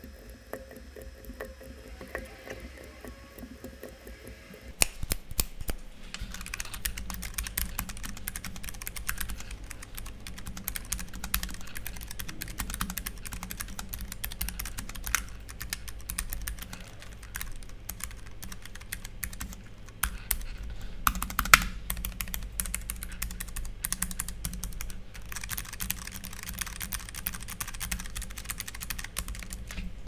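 Typing on a Keychron K3 low-profile optical mechanical keyboard. Lighter, sparser key presses on Keychron Optical Red switches for the first few seconds, then a steady, dense clatter of keystrokes on Keychron Optical White switches from about six seconds in.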